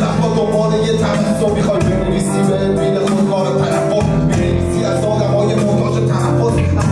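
Live band playing a song through a PA: electric guitar and drum kit, with a singer's voice over a microphone.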